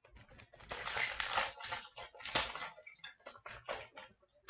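Wrapper of a 2015-16 O-Pee-Chee Platinum hockey card pack crinkling and tearing as it is opened, crackling thickly for the first couple of seconds, then lighter clicks and rustles as the cards are handled.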